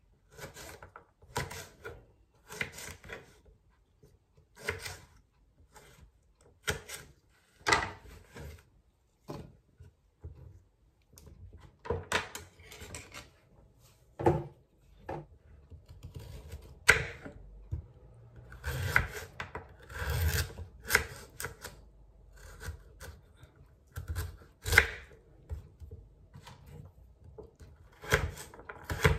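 Kitchen knife cutting runner beans, then carrots, on a wooden chopping board: irregular, separate knocks of the blade against the board.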